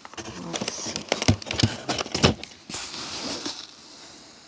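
Plastic VHS tape cases clicking and knocking against each other in a cardboard box as they are handled, followed by a short scraping rustle.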